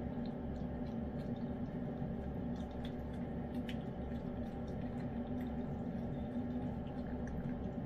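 Lynx point Siamese cat licking and chewing wet chicken pâté: small wet clicks and smacks, scattered and irregular, over a steady low hum.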